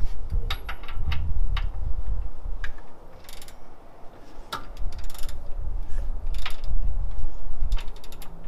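Socket ratchet clicking in irregular runs, with knocks, as an LS1 V8 is turned over by hand at the crankshaft for a couple of rotations to check piston-to-valve clearance.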